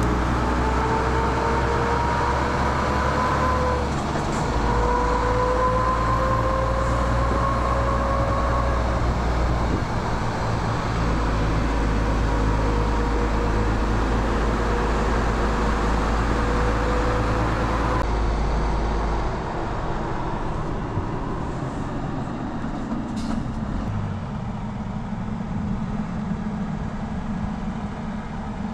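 MAN TGX 18.470 truck's straight-six diesel heard from inside the cab, pulling under acceleration with a tone that climbs in pitch. About four seconds in the tone breaks off and restarts lower, then climbs again: an upshift of the automated gearbox. After about eighteen seconds it gives way to a duller, steady drone of the truck and trailer rolling on the road.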